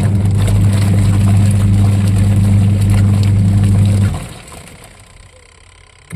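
Washing machine motor running with a steady hum during the wash cycle, cutting off about four seconds in for a pause in the agitation before starting up again.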